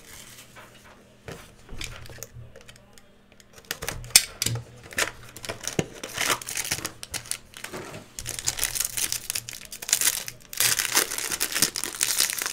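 Foil wrapper of a hockey card pack crinkling as it is handled and torn open by hand. The crinkling starts about four seconds in and is densest and loudest near the end.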